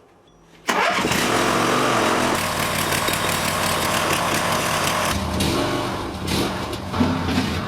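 Engine of a home-built hydraulic loader starting up suddenly less than a second in and then running steadily, easing off somewhat about five seconds in.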